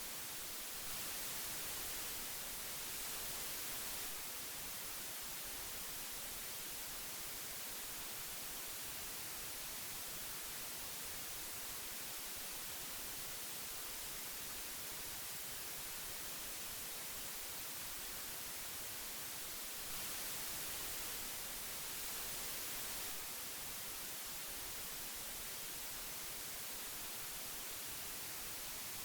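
Old audio tape hiss: a steady, even hiss, strongest in the treble, swelling slightly a second in and again about twenty seconds in.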